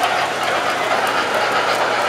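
O-gauge model passenger cars rolling along the track, a steady rumbling rattle of metal wheels on rail.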